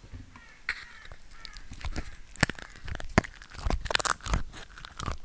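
Slime being handled and squished close to the microphone: irregular sticky crackles, pops and tearing sounds that come thicker in the second half.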